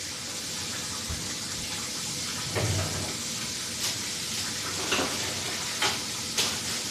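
Steady kitchen hiss, like food sizzling or water running, with a few light clicks and knocks of utensils scattered through it.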